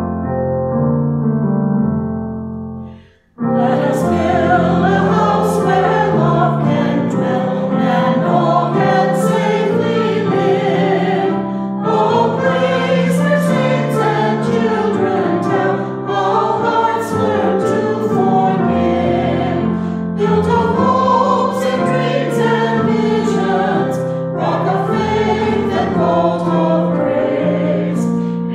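Keyboard introduction fading out about three seconds in, then a church choir singing a hymn over a keyboard accompaniment.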